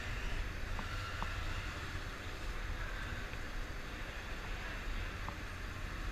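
Steady low engine rumble, with a few faint ticks about a second in.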